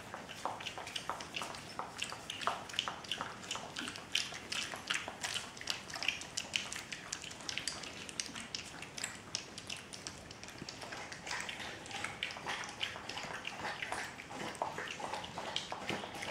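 Collie puppies lapping and slurping milky food from shallow metal bowls: a steady stream of small wet licking clicks from several mouths at once.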